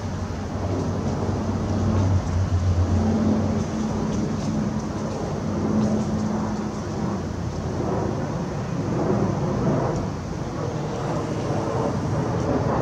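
Jet airliner, an Airbus A318, passing overhead on approach with a steady low rumble. A low hum sits in the noise for the first several seconds.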